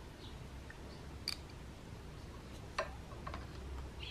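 A few faint clicks of small parts being handled at a motorcycle tyre's valve stem: a valve cap and a dial tyre-pressure gauge being brought to the valve for a pressure check.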